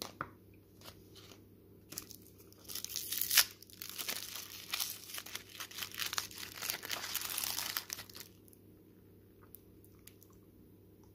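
A Lindt Lindor truffle's foil wrapper with its clear twist ends being crinkled and pulled open by hand: a dense run of crackling lasting about five seconds in the middle, after a few small rustles and clicks.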